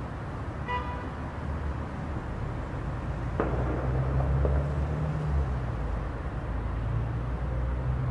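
City street ambience: a steady low rumble of traffic that swells for a couple of seconds midway. There is a brief high toot about a second in and a sharp knock about three and a half seconds in.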